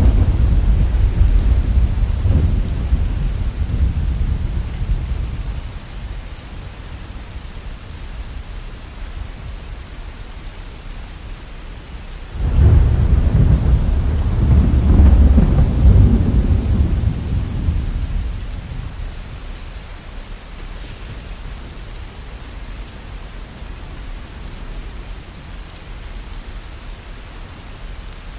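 Heavy rain falling steadily, with rolling thunder: a rumble dying away over the first few seconds, then a second peal that breaks in suddenly a little under halfway through, swells, and fades out over about six seconds.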